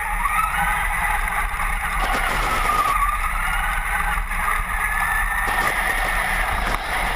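Traxxas Summit RC truck's electric motor and geared drivetrain whining under throttle. The whine's pitch rises and falls several times as the truck speeds up and slows.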